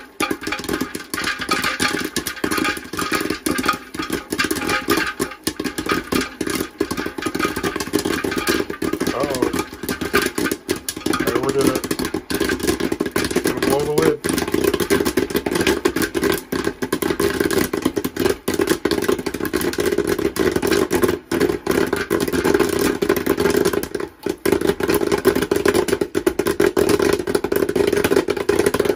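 Stir Crazy electric popcorn popper in full pop: kernels popping rapidly and continuously against the plastic lid-bowl over the steady hum of its stirring-arm motor.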